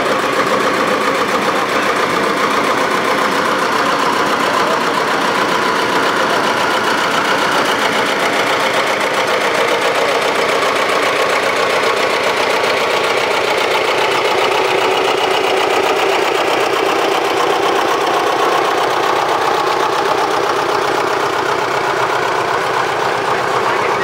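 Vintage farm tractor's engine running steadily as it drives slowly past close by, with a knocking beat.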